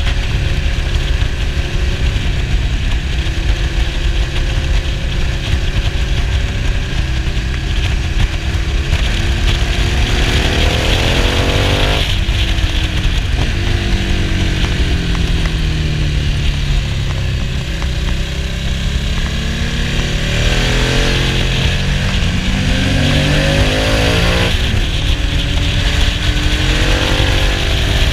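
Motorcycle engine heard from the rider's seat while riding, with steady wind rush on the microphone. The revs climb a few times, about ten seconds in and again around twenty and twenty-five seconds in, each time dropping away suddenly.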